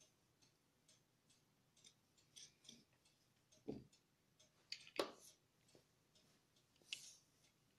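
Quiet handling sounds: a few soft knocks and clicks as hands move over a laptop's plastic bottom case and pick up a small screwdriver, the sharpest click about five seconds in.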